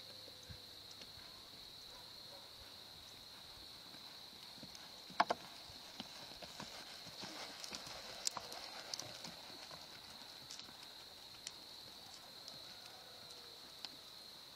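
Hoofbeats of a palomino gelding moving under saddle through a sand arena, faint and soft over a steady hiss, busiest as the horse passes close about halfway through. Two sharp clicks stand out about five seconds in.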